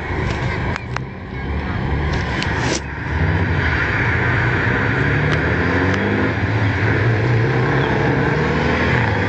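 Volvo and Scania truck tractor units' diesel engines running hard as the trucks pull away together. The sound gets louder about three seconds in, with pitch rising and falling as the engines rev. A few sharp clicks come before the engines swell.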